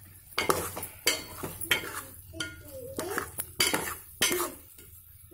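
Metal spoon scraping and clinking against a metal pot while stirring boiled eggs through a thick masala gravy, in a string of irregular strokes.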